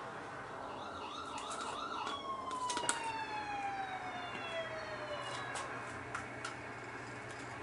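Siren: a quick warbling yelp, then one long wail that falls in pitch and winds down over about three seconds. A few sharp clicks come with it, the loudest about three seconds in.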